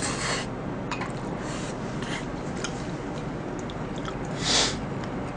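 Close-miked eating: a person chewing and slurping spoonfuls of kimchi stew and rice, with faint clicks of a spoon against a bowl. There is one louder short slurp about four and a half seconds in.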